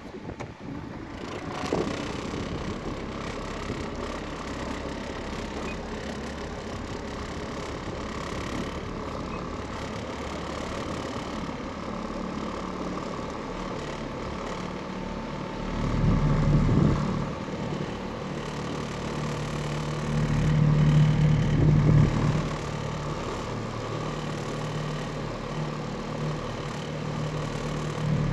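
Boat engine running steadily at low speed, a continuous hum that grows louder twice, about halfway through and again a few seconds later.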